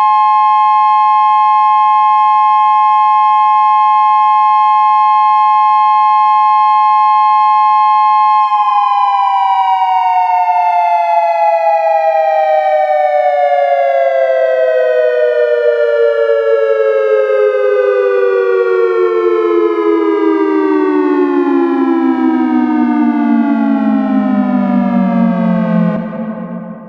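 Synthesized Federal Signal SiraTone electronic siren sounding its major-third dual tone of 850 and 1062.5 Hz. The two tones are held steady, then about a third of the way in they slide down together in a long wind-down that fades out at the very end.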